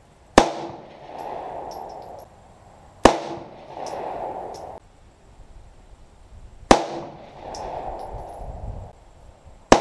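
Four single shots from a Glock 19 9mm pistol, fired slowly about three seconds apart. Each is a sharp crack followed by a second or so of echo.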